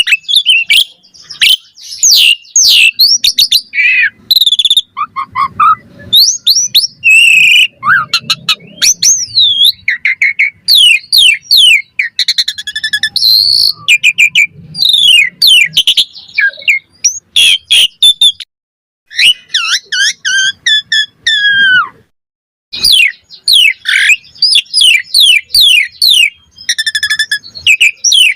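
Asian pied starling (jalak suren) singing a long, varied song of loud whistles, rising and falling sweeps and fast chattering trills, with a couple of brief pauses.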